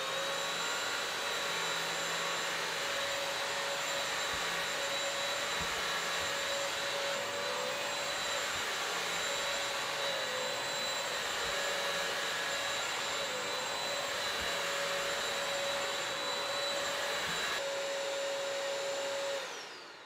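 Bissell CrossWave wet-dry vacuum mop running steadily on a rug, a really loud motor with a constant high whine over its rushing noise. Near the end it is switched off and the motor winds down, its whine falling in pitch.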